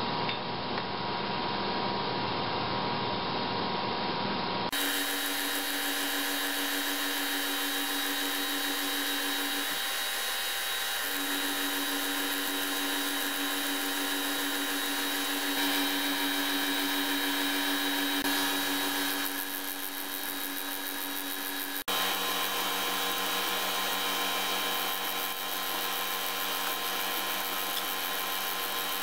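Vertical milling machine running, its end mill cutting a steel bandsaw vise shoe on a pass to depth: a steady machine sound that changes abruptly about five seconds in and again about 22 seconds in.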